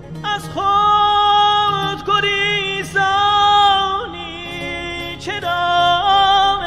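Soundtrack song in Persian: a singer holds long, wavering notes with short breaks between them, over a soft low accompaniment that fades out about three seconds in.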